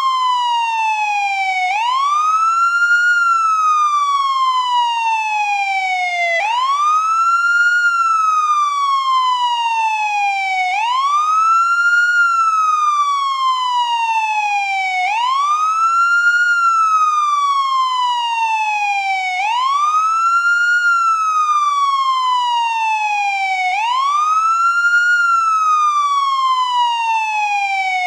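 American police car siren in wail mode: a tone that sweeps up quickly over about a second, then falls slowly over about three seconds. It repeats about every four and a half seconds, six times through.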